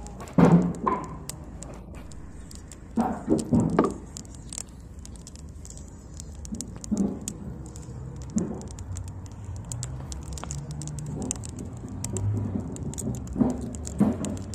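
Small wood fire crackling and popping in quick, irregular clicks under a tin of melting wax. A few louder, muffled sounds come about half a second in and again around three to four seconds in.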